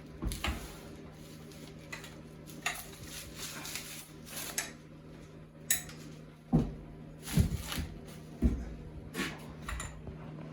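Irregular clatter, knocks and rustling of an electric bicycle and its packaging being handled while it is lifted out of its shipping box, with a few heavier thumps in the second half.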